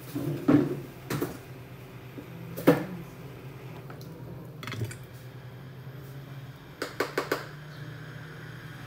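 Hard little clicks and knocks of tools and small objects being handled and set down on a repair bench, one knock louder than the rest and a quick run of four clicks near the end, over a steady low hum.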